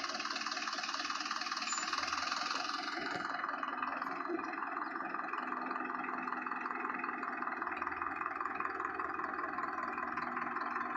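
Powertrac Euro 55 tractor's diesel engine running steadily under load as it pulls a heavily loaded trolley slowly across the field.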